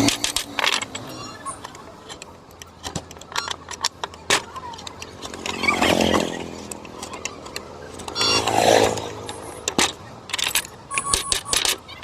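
Hand woodcarving tools working wood: irregular sharp taps and clicks, with a person's voice briefly about halfway through and again about two-thirds of the way through.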